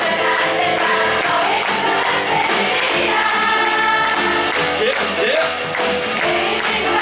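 Live music: several voices singing together in harmony over instrumental accompaniment with a steady beat.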